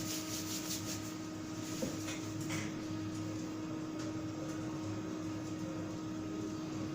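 HP ProLiant ML350 Gen9 server running steadily while it boots, its cooling fans giving an even hum with a constant tone. A few faint ticks come about two seconds in.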